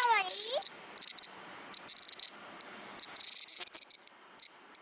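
Cicadas calling: a high-pitched buzzing that keeps breaking off and starting again in short bursts.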